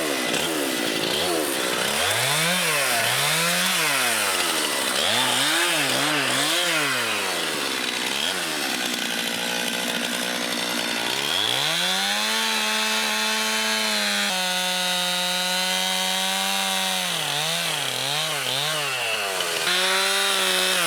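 Chainsaw engine revving up and down in quick blips, then held at high speed for several seconds while cutting a stick of wood into a wedge, then more short revs near the end.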